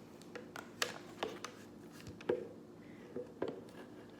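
Several light, irregular clicks and knocks, like handling noise, the sharpest about two and a half seconds in, over a faint steady hum.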